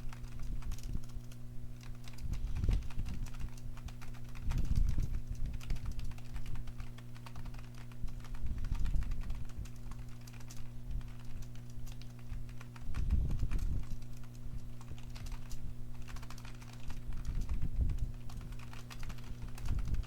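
Fast continuous typing on a computer keyboard: a dense stream of key clicks, with heavier clusters of thumps every few seconds.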